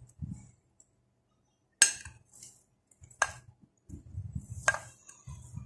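A steel spoon clinking against glass dishes three times, as ground spices are scooped up and tipped into a blender jar, with soft handling thumps between the clinks.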